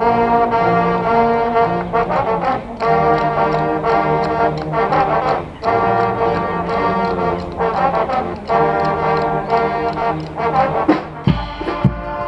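Guggenmusik carnival band playing loud brass chords on trombones, trumpets and sousaphones, in phrases with short breaks between them. Drum beats come in near the end.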